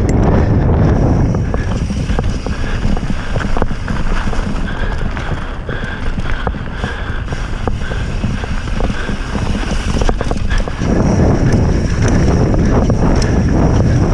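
Wind buffeting a camera microphone on a fast mountain-bike ride over dirt singletrack, with the bike rattling and clicking over the rough ground. The wind rush eases for a stretch and builds again about eleven seconds in.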